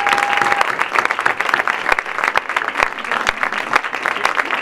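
Audience applauding after an award is announced, with a held whoop that ends about half a second in.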